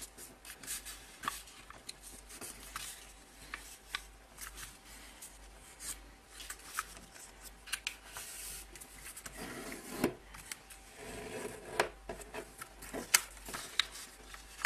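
A narrow paper strip being folded accordion-style and creased down by hand: irregular rustling, rubbing and sharp crinkling clicks of paper, with a few louder snaps near the end.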